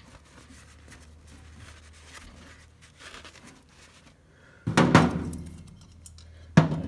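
Faint rubbing and handling noise, then a loud thunk that rings briefly about two-thirds of the way through and a second thunk just before the end, as things are handled and set down at the engine during cleaning.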